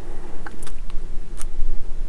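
A few light clicks and ticks of small plastic model-kit parts and tools being handled, over a steady low hum.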